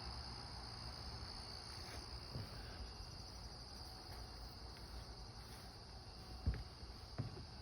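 Insects singing in a steady, high-pitched drone, with a couple of soft low thumps near the end.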